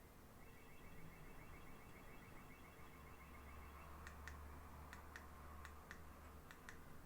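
Faint button clicks on a ring light's remote control: four pairs of short clicks about a second apart, each a press and release. Before them a faint rapid ticking runs for about three seconds.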